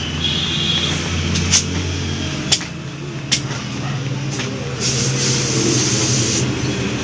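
A vehicle engine running steadily in the background, with a few sharp clicks and, about five seconds in, a scratchy rubbing sound lasting a second or so while a truck inner tube is worked by hand for patching.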